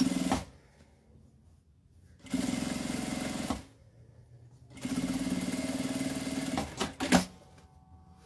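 Industrial lockstitch sewing machine stitching in two steady runs, one of about a second and a half and one of about two seconds, to sew an edge stitch along the fabric just below a zipper. There is a brief burst right at the start and a sharp click about seven seconds in.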